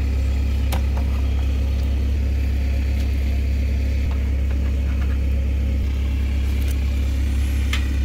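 A steady, loud low machine hum: a deep drone with even overtones that does not change. A few short, light clicks sit on top of it, about a second in, around three seconds in and near the end.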